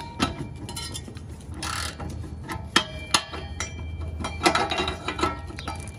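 Ratchet and oxygen-sensor socket working loose a hot downstream oxygen sensor from the exhaust, with irregular clicking and metal clinks. The clicks bunch together about four and a half seconds in.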